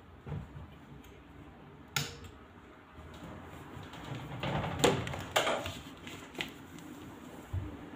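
A sharp click about two seconds in, fitting the germicidal lamp being switched off, then a few seconds of rustling and scattered light clicks and knocks from handling, loudest about five seconds in.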